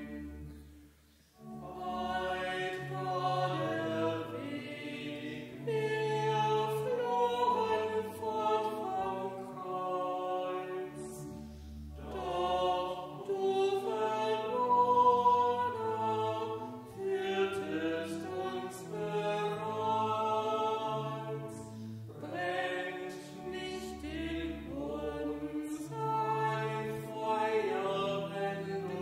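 Choral music: a choir singing in sustained, several-part harmony, with a brief pause between phrases about a second in.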